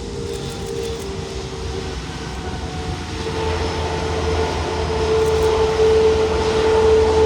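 Jet engines of a Boeing 737 MAX 8 airliner running with a steady whine and low rumble, growing louder about halfway through as the aircraft draws nearer.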